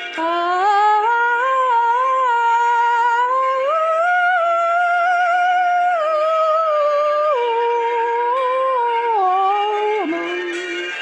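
A woman's solo voice singing a slow, wordless melodic line in long held notes, rising in steps early on and falling near the end, over faint steady background tones.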